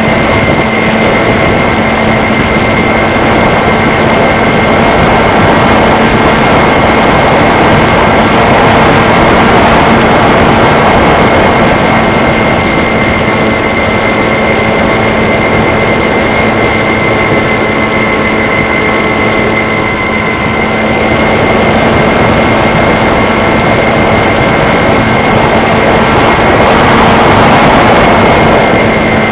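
RC model plane's motor and propeller running at a steady speed: a constant whine over loud rushing noise, easing off slightly about two-thirds of the way through before picking up again.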